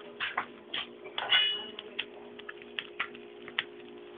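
Light clicks, taps and scrapes of a spatula against a frying pan as it is worked under a folded crepe, with one brief ringing metallic clink about a second in. A faint steady hum runs underneath.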